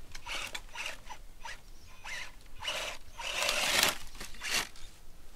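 Radio-controlled off-road scale truck driven in bursts, its tyres spinning and scrabbling on loose dirt; several short bursts, the longest and loudest about three to four seconds in.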